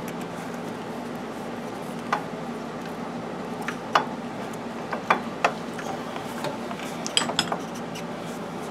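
Scattered light metallic clinks and knocks, about eight in all, as a motorcycle's old front shock absorber is worked up and out against the surrounding metal fork and frame parts, over a steady low hum.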